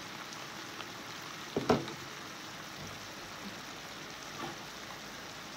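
Stir-fry of beef and greens simmering in a pan, a steady soft sizzle. A single knock about a second and a half in.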